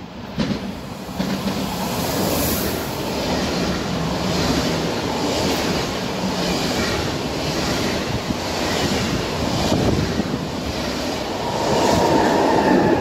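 SBB double-deck push-pull passenger train passing through a station at speed: a loud rush of wheel and air noise over a rhythmic wheel clatter. It is loudest near the end, as the red Re 460 electric locomotive at the rear goes by with a whine.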